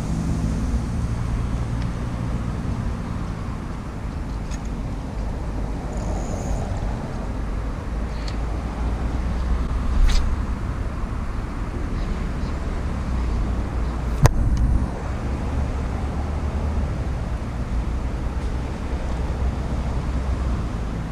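Steady low rumble of motor vehicle traffic, with a brief sharp click about two thirds of the way through.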